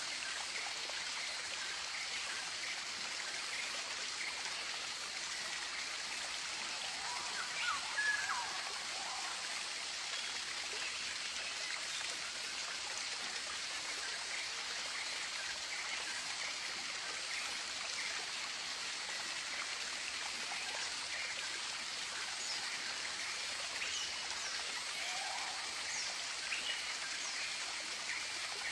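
Tropical forest soundscape: a steady, even hiss with a few scattered, brief bird calls, the clearest about eight seconds in and again near the end.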